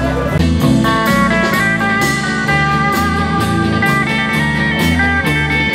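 Blues-style background music led by guitar, over a stepping bass line and a steady beat.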